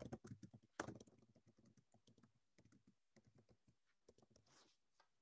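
Faint typing on a computer keyboard: a quick run of key clicks in the first second, then scattered, fainter keystrokes.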